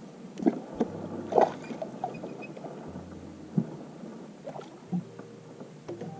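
Scattered knocks and thumps of handling on a fishing boat's deck, where a freshly landed flathead catfish is being dealt with. The loudest knock comes about a second and a half in.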